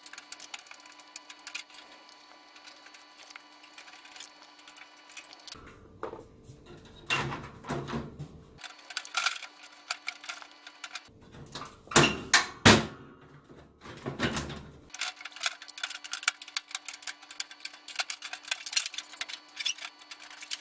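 Clicks, taps and metal rattles of a screwdriver and hands working at the sheet-metal front panel of a Rinnai Granada 25 gas heater to pry it off. The knocks come in irregular clusters, sparse at first and loudest about halfway through.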